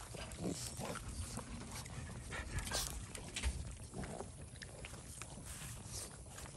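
Boston terriers chewing and scuffling over chunks of watermelon: a run of short, irregular mouth and nose noises with a few brief low grunts.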